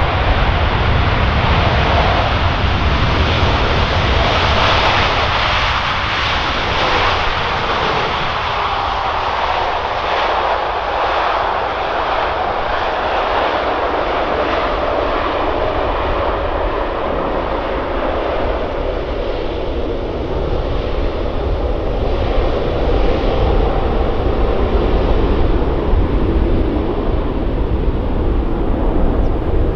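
Boeing 747-8F's four GEnx-2B turbofans running loud in reverse thrust during the landing rollout, with a whine that falls in pitch over several seconds as the engines spool down.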